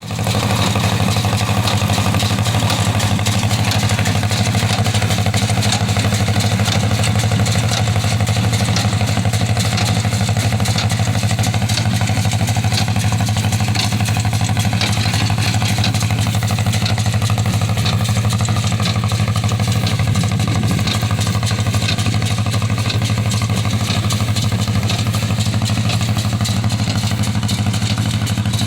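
1953 John Deere 40T tractor's two-cylinder engine running steadily, with a New Holland 66 hay baler clattering along with it.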